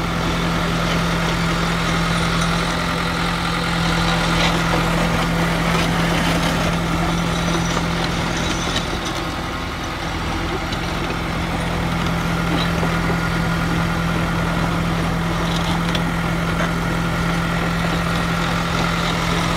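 John Deere 450G LT crawler dozer's diesel engine idling steadily.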